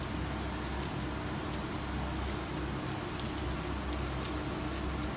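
Commercial gas grill burning with natural charcoal on its burners: a steady hiss with a low hum, and skewered chicken sizzling over the coals with faint crackles.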